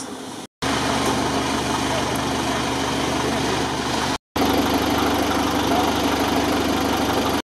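Rebuilt GAZ-63 off-road truck's engine idling steadily, broken by two short dropouts in the audio.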